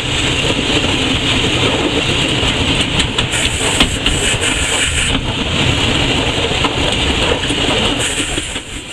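Steam locomotive under way, heard from inside its cab: a loud, steady running noise with a few sharp clicks.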